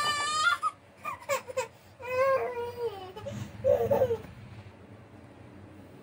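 A young child crying: several high, wavering wails over the first four seconds, then only a low, steady room hum.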